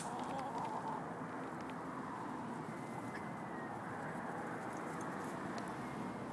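A flock of chickens clucking and murmuring at a low, even level, with no loud calls.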